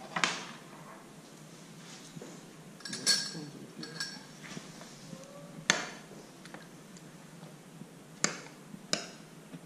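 Kitchen utensils and dishes clinking about five times, a few seconds apart: a metal pan handled, then a spoon against a ceramic bowl. The clink a little after 3 s rings on briefly.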